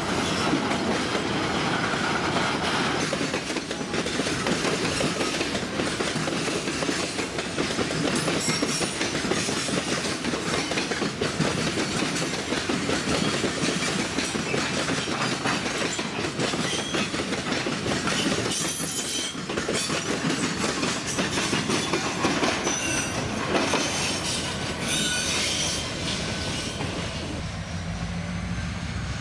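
Freight train wagons rolling past, with a steady clatter of wheels over the rails and intermittent high wheel squeal. The clatter eases near the end.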